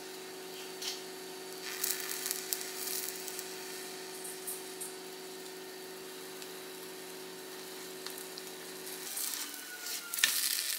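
Spatula and tongs scraping and tapping on bread in a nonstick frying pan over a low steady hum that stops about nine seconds in; near the end the sandwich is flipped and the pan starts to sizzle.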